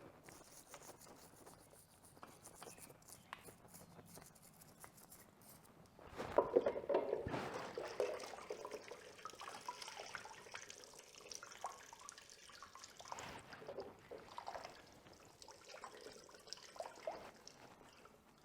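Wet scrubbing and rubbing on a dirt bike's rear brake caliper during cleaning. It is faint at first and gets louder and busier from about six seconds in.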